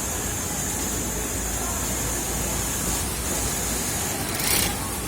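Steady machine noise: a low electric hum with a high whine that breaks off briefly about three seconds in and stops about four seconds in, followed by a short hissing burst near the end.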